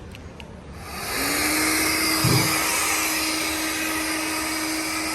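Hoover cordless wet-and-dry floor vacuum switched on about a second in: its motor spins up and runs steadily with a constant whine over a rushing hiss, with a short low bump a little after two seconds in.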